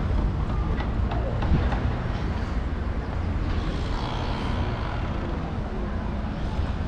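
Outdoor city-square ambience: a steady low rumble with a few faint clicks in the first couple of seconds.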